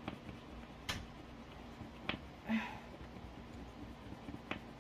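Coin scratching a scratch-off spot on a small paper card: a few short, sharp clicks and scrapes, spaced out.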